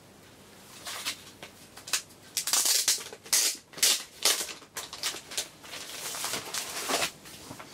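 Plastic-wrapped vinyl LP packaging being handled: a quick, irregular run of crinkling and rustling crackles, starting about a second in.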